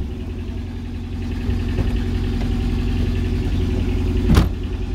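A car engine idling steadily, with one sharp thump about four seconds in.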